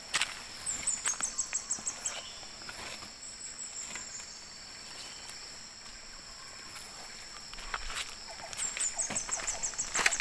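Steady high drone of insects from the riverside forest, cut through twice by a short, rapid run of about eight high chirps. Scattered light clicks and rustles come from a nylon gill net being picked over by hand.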